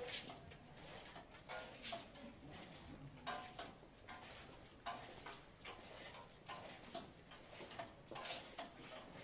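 Costaleros' footsteps under a Holy Week paso: quiet, irregular scraping and clicking as the bearers shuffle it forward in short steps.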